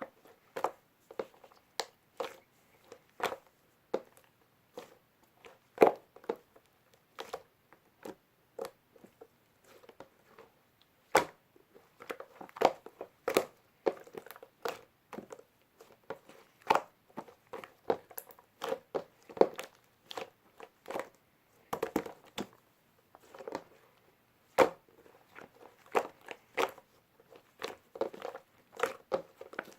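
Two-layer slime being pressed and squished by hand, giving irregular sharp clicking and popping sounds, one to a few each second.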